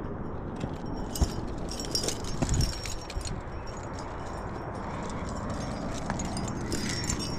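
Metal trad-climbing gear (carabiners and protection on a harness rack) clinking and jingling in short bursts, about one to three seconds in and again near the end, over a steady background rush.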